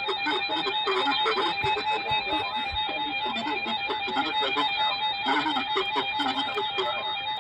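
Music with plucked guitar-like strings, over a steady high-pitched electronic whine.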